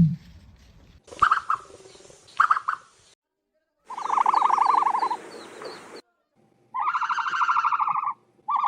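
Ostrich calls cut one after another: two short calls, then a longer buzzing call about four seconds in, and two rattling, pulsed calls near the end.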